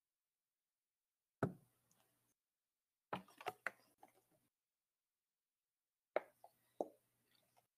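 A few sharp knocks and clicks, one alone and then two small clusters of three or four, each dying away quickly, with a faint hiss and low hum behind them while they sound.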